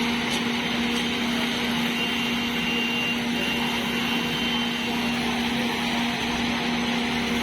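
Construction machinery running steadily at a constant pace, a continuous engine hum with an even noise over it.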